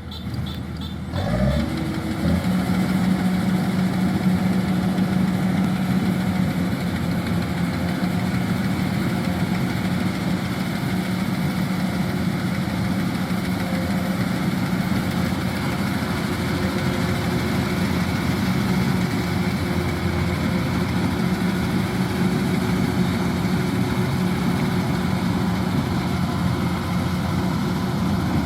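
Kubota DC-105X combine harvester's diesel engine: about a second in it spins up, rising in pitch, then runs on at a steady drone.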